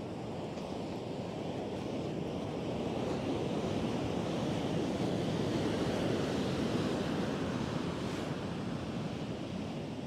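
Atlantic surf washing onto the beach as a steady rushing noise, swelling to a peak midway as a wave breaks and then easing off.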